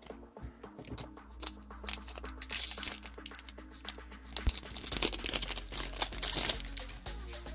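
Shiny plastic booster-pack wrapper crinkling and tearing as it is opened by hand, among quick clicks of cards being handled. The crinkling is loudest twice: about two and a half seconds in, and again from about five to six and a half seconds.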